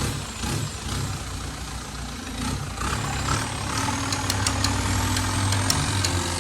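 A boat motor running steadily, with a series of sharp ticks starting about halfway through.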